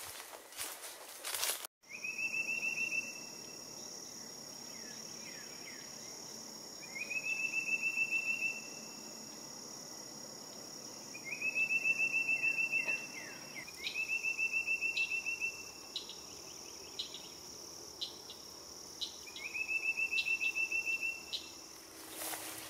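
Footsteps on the trail for the first two seconds or so, then a steady high-pitched insect drone with a short, rapid trill, such as a songbird gives, repeated five times a few seconds apart.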